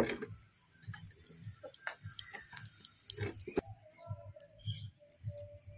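Scattered small clicks, pops and drip-like ticks from a miniature twig-fired clay stove heating water in a clay pot. A faint steady whistling tone comes in past the middle.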